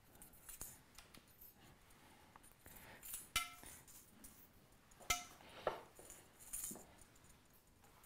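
Faint metallic clinks of steel bicycle spokes and nipples being picked up and handled, a few sharp clicks, two of them with a short ringing ping about three and a half and five seconds in.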